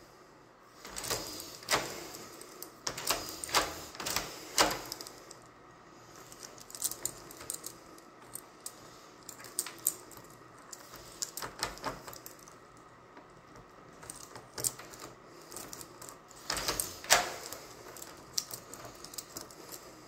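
Key being worked in the cylinder of a DOREX heavy-duty Grade 1 classroom knob lock: irregular metallic clicks of the key and lock mechanism in clusters, with the keys on the ring jangling. The loudest burst of clicks comes near the end.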